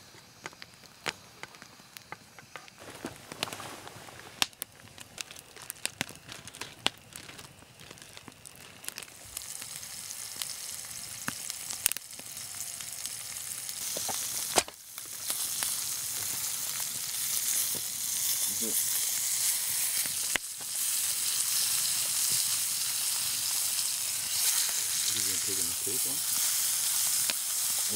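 Whole trout frying in oil in a skillet over a campfire. The sizzle grows louder about a third of the way in and holds steady through the second half. Scattered sharp clicks and crackles come through in the first part.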